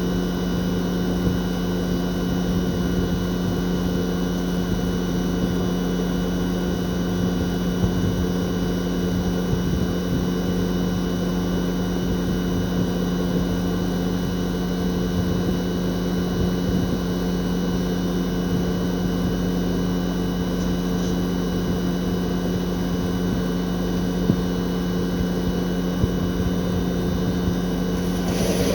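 Toshiba RAS-4069AV outdoor unit's twin-rotary inverter compressor running steadily in defrost mode, a constant hum with a few steady higher tones. The outdoor fan is stopped, as it is during defrosting, so the compressor is heard without fan noise. A short burst of noise comes right near the end.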